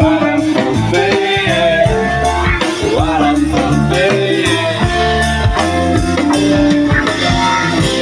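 Live rock band playing through a PA: electric guitars, an acoustic guitar and a drum kit keeping a steady beat.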